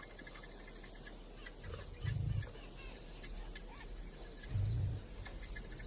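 Woodland ambience with small birds chirping and calling throughout, and two short, low, rumbling sounds, about two seconds and four and a half seconds in, that are louder than the birds.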